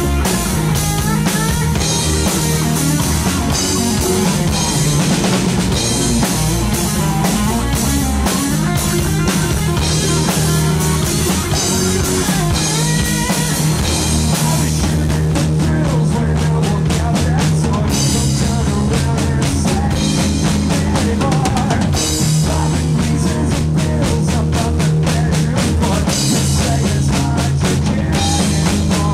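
Live rock band playing: electric guitar, bass guitar and a Gretsch drum kit driving a steady beat.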